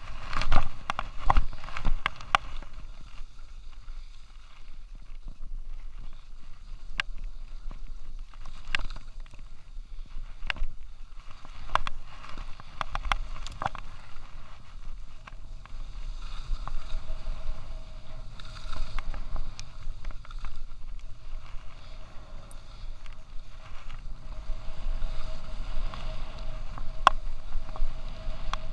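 Skis sliding and scraping over packed, tracked snow during a downhill run, heard from a chest-mounted action camera. Scattered sharp clicks and knocks run through it, busiest and loudest in the first couple of seconds.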